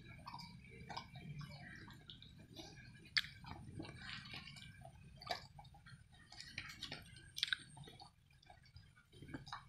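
Dog eating snacks off a paper plate: faint, irregular wet chewing and smacking with scattered clicks, a few sharper ones standing out.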